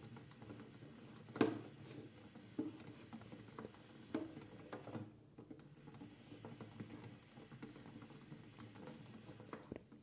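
Toy front-loading washing machine's plastic drum turning with water and wet laundry sloshing inside, with irregular knocks and clicks, the loudest about a second and a half in.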